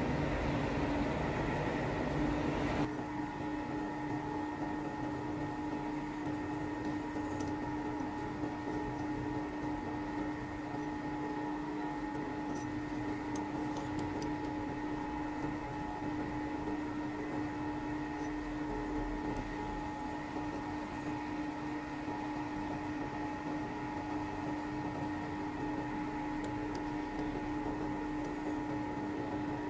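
Steady electric machine hum with a constant mid-pitched whine, most likely a metal lathe's motor running. A louder rumble cuts off about three seconds in, and a few faint light clicks come near the middle.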